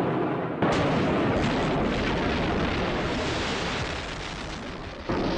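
Cartoon rocket-launch sound effect of the space lifeboat blasting off: a loud, continuous rushing blast that surges about half a second in and slowly fades. A fresh blast starts just before the end.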